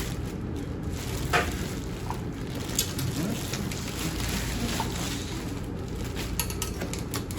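Handling noise from unpacking an LED flood light: crackling and rustling of plastic film and foam packaging, with scattered light clicks and knocks, over a steady low background rumble.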